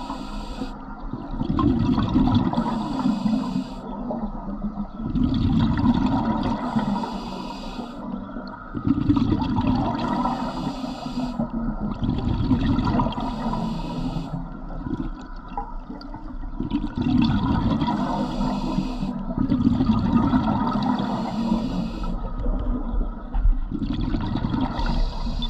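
Scuba diver breathing through a regulator underwater: a hissing inhale alternating with a gush of rumbling exhaled bubbles, about one breath every four seconds.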